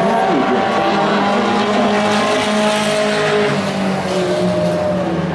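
A pack of short-track race trucks running at full throttle. Several engines are heard at once, their notes rising and falling as the trucks pass and go into the turn.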